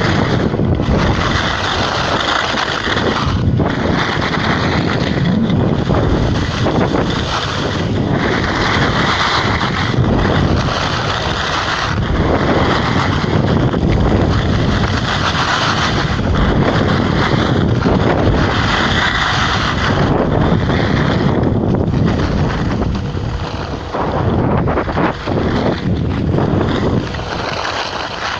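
Continuous rushing noise of wind on the camera's microphone as a skier runs downhill, mixed with the hiss of snow guns spraying along the piste. It swells and eases every few seconds.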